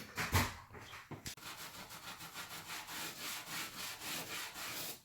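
A cloth being rubbed back and forth over the surface of a new kitchen unit, polishing it in quick even strokes about three or four a second, after a few knocks in the first second or so.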